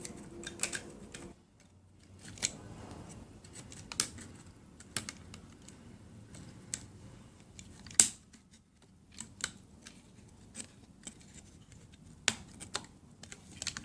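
Scattered small clicks and taps of plastic and carbon parts being handled as the Walkera Furious 320 drone's body shell is worked loose and lifted off its frame, the sharpest click about eight seconds in.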